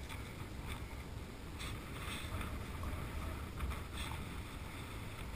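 Wind buffeting the microphone: a steady low rumble with a faint hiss, broken by a few soft ticks.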